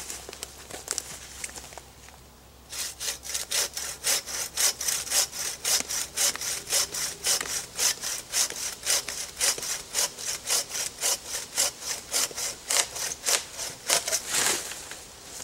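Hand saw cutting through a fallen birch trunk: quick back-and-forth strokes, about three a second, starting about three seconds in and stopping near the end.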